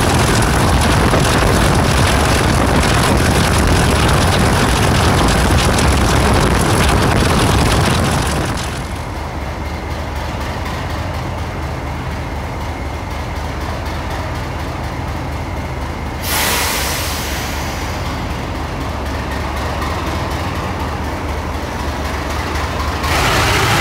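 Class 37 diesel locomotive 37425's English Electric V12 engine running loud under power, then dropping back to a quieter, steady running note about eight seconds in. A sudden short hiss about sixteen seconds in, and the engine loud again near the end.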